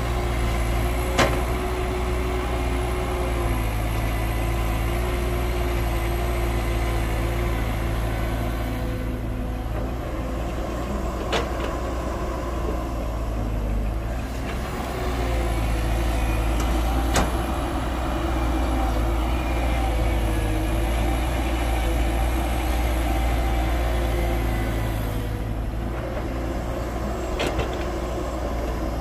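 Heavy diesel earthmoving machinery, an excavator loading a dump truck, running steadily. Four sharp knocks stand out, spread several seconds apart.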